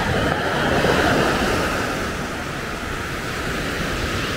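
Small Mediterranean waves washing onto a sandy beach: a steady rushing surf that eases slightly toward the end, with some wind on the microphone.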